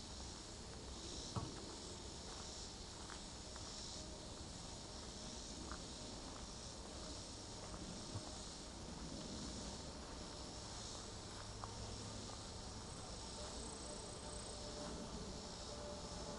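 Summer insect chorus in woodland: a steady high shrilling that swells and fades in regular pulses a little over a second apart. A few faint clicks stand out, the loudest about a second and a half in.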